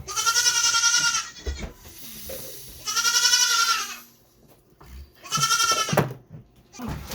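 Milk goat bleating three times, loud wavering calls: the first two about a second each, the third shorter.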